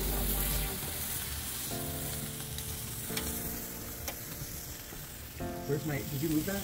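Chicken skewers sizzling over glowing charcoal on a kettle grill: a steady frying hiss of fat and juices, with a few light clicks.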